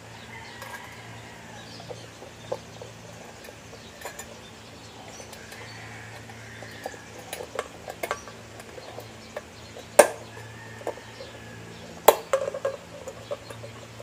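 Scattered small clicks and metallic taps from an LED headlight bulb being seated in a chrome headlight reflector and its wire retaining clip, with two sharp, louder clicks about ten and twelve seconds in.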